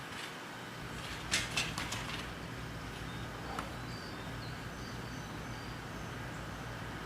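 A vehicle engine runs with a steady low hum, with a brief rustle and clatter of handling noise about a second and a half in. A few faint high chirps come through in the middle.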